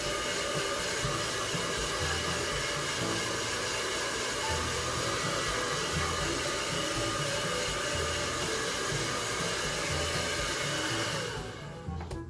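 Handheld hair dryer blowing steadily, a rush of air with a fixed motor whine, drying wet paint on a canvas panel; it switches off near the end.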